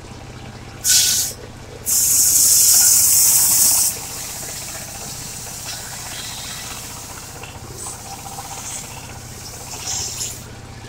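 Engine of a mobile circular sawmill running with a steady low hum. A short hiss comes about a second in, then a loud high hiss lasting about two seconds.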